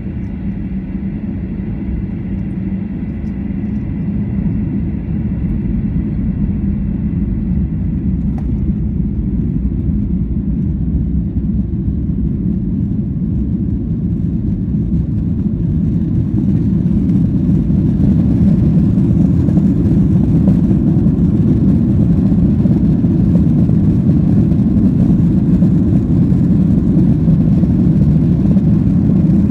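Jet airliner's engines and rolling noise heard inside the cabin, a steady low rumble that grows louder and fuller through the second half as the plane gathers speed for takeoff. A thin high tone fades out within the first several seconds.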